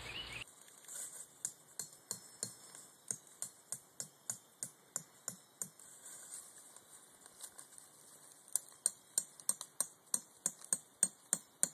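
Hammer driving tent stakes into the ground: a run of sharp taps at about three a second, pausing for a couple of seconds around the middle, then resuming a little faster near the end.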